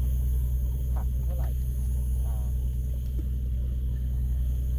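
A steady low engine drone, like a small motor running at a constant speed, with faint voices briefly in the background.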